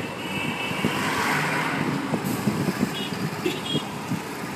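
Busy street traffic heard from a car window: engines and road noise from passing motorcycles, cars and auto-rickshaws, with a vehicle swishing past about a second in and a few short high beeps, likely horns, about three seconds in.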